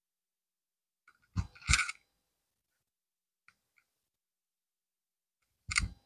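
Short knocks and rustles of hands handling things on a towel-covered cardboard work surface: two close together about a second and a half in, a faint tick or two mid-way, and one more near the end.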